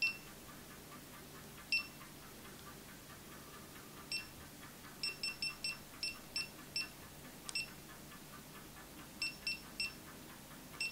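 GoPro camera beeping as its buttons are pressed to step through its menus and set time-lapse mode: about fourteen short high beeps, some single and some in quick runs of three or four.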